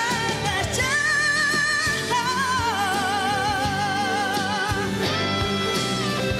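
A woman singing a ballad live with a pop-rock band, holding long notes with wide vibrato over electric guitar and drums. She steps down to a lower held note about two seconds in and rises to a higher one near the end.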